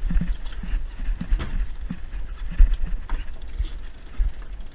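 Yacht deck winch being cranked by hand, its pawls clicking irregularly, under a heavy rumble of wind on the microphone.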